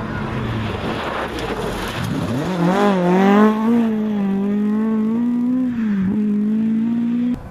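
Ford Escort rally car on a loose gravel stage, its engine running steady over gravel noise as it approaches. About two seconds in the revs rise sharply as it accelerates past, then hold high and steady with small wobbles. The sound cuts off suddenly near the end.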